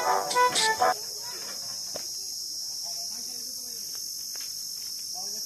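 Background music for about a second, cutting off suddenly, leaving a steady high-pitched insect drone of crickets or cicadas.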